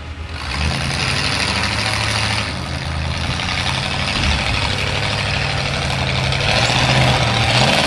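Off-road rock-crawler buggy's engine running under load as it crawls up a rocky hill climb, picking up about half a second in and then holding a steady note.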